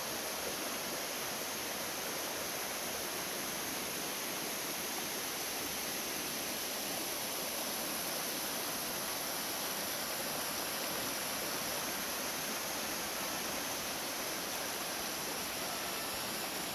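Shallow rocky stream rushing and splashing over stones, a steady even rush with a constant high hiss on top.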